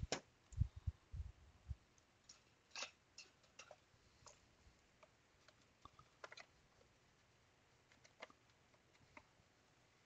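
A knock and a few dull bumps in the first two seconds as the plastic scanner tablet is tipped onto its edge and handled on the bench, then scattered faint clicks and ticks of its plastic housing as the case seam is worked at to pry it open.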